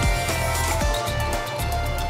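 Background music: an electronic synth track with held notes and a steady bass and kick-drum beat.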